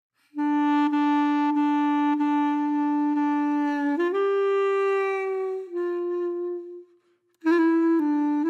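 Background instrumental music: a single melody line of long held notes that steps up in pitch about four seconds in, fades out briefly near seven seconds, then comes back.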